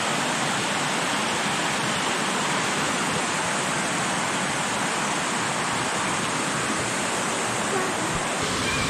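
Small creek waterfall pouring into a pool: a steady rush of falling water.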